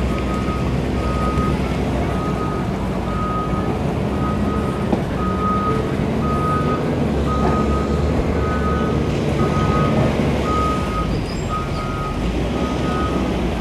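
A vehicle's reversing alarm beeping steadily at one pitch, about once a second, over the low running of idling engines.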